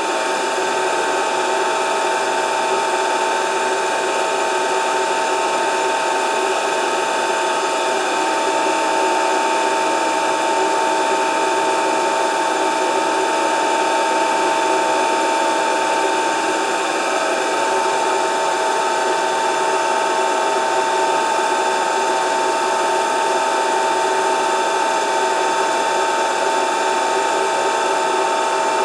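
Grinding machine running steadily with a constant whine, its wheel grinding a workpiece turning in a motor-driven spin jig during cleanup passes.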